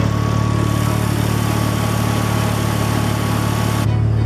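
Mazda RX-7 FD3S's twin-rotor rotary engine idling with a steady low hum. It is left running with the turbo timer switched off, the only way it would run properly. A hiss over it cuts off sharply near the end.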